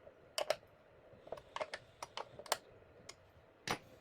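About ten sharp, irregular clicks and taps of hand tools and small metal and plastic parts being handled as fastenings on a miter saw are snugged up, the loudest one near the end.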